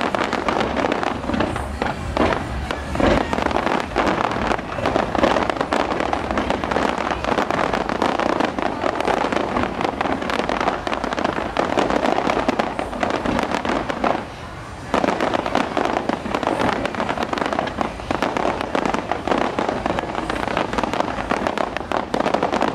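Aerial fireworks bursting in a dense, continuous barrage of bangs and crackles, with a brief lull about two-thirds of the way through.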